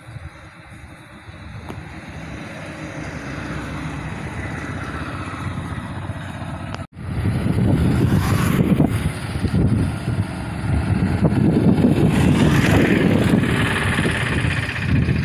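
Road traffic passing, including a motorcycle going by close. The sound swells over the first several seconds, breaks off abruptly about seven seconds in, then comes back louder and rougher.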